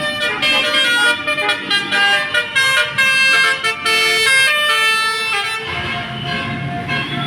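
A tour bus's Basuri telolet horn plays a fast tune of short notes that step up and down in pitch for about five and a half seconds. After that the bus's engine is heard, with fainter horn tones.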